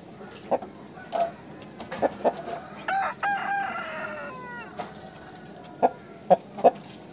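Aseel rooster crowing once, a short crow of about a second and a half that falls in pitch at the end, with brief sharp clucks before and after it.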